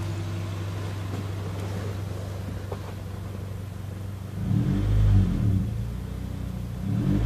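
1999 Honda CR-V four-cylinder engine idling steadily, then revved up and back down about four seconds in, with a second rev starting near the end. The engine runs on a home-built coil-on-plug ignition conversion that the owner says runs with no glitching.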